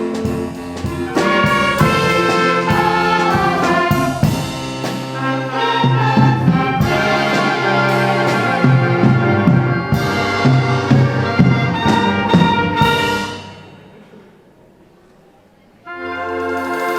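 A live ensemble with prominent brass, trumpets and trombones, playing rhythmic orchestral music. It breaks off about thirteen seconds in, there is a quiet gap of about two seconds, and then it starts again.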